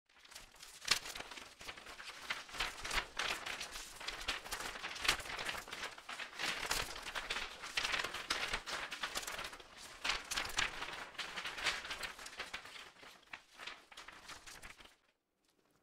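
Dense, irregular crinkling and crackling noise, with no tune or voice, cutting off sharply about fifteen seconds in.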